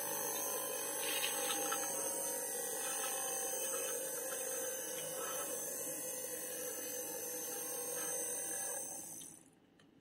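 Small electric motor of a homemade plastic-bottle vacuum cleaner running with a steady whine, and a few faint ticks as small bits are sucked up the hose. The motor cuts off about nine seconds in.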